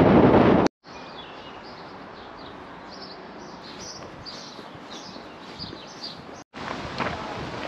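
Small birds chirping and singing in many short high calls over a quiet background. Before and after, wind rushes on the microphone, and both times it starts or stops abruptly.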